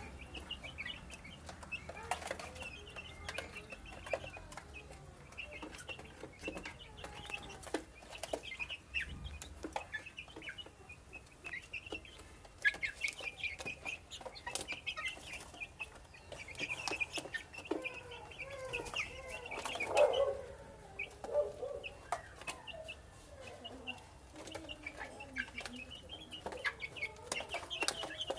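A flock of young growing chickens peeping and clucking continuously as they feed, with sharp clicks of beaks pecking at a plastic feed dish. A louder, lower cluck stands out about twenty seconds in.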